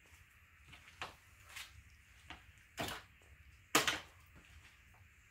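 A handful of short, sharp knocks and clinks from hand tools being handled at a wooden stool, about five in all, the loudest near four seconds in.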